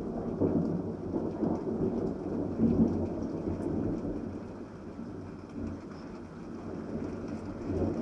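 Thunder rumbling in rolls, loudest in the first three seconds, easing off about five seconds in and building again near the end, with rain falling.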